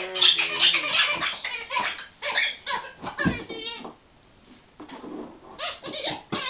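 A dog chewing a rubber squeaky toy, which squeaks again and again in quick runs for about four seconds, then pauses before a few more squeaks near the end, with a dull knock about three seconds in.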